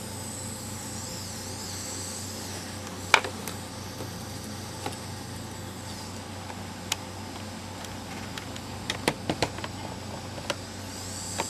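Light clicks and taps of small electronic parts being handled on a desk, a single one about three seconds in and a quick cluster near the end, over a steady low hum.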